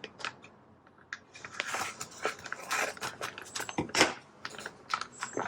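Plastic packaging being handled and opened: irregular crinkling and rustling with scattered clicks, a sharp click about four seconds in.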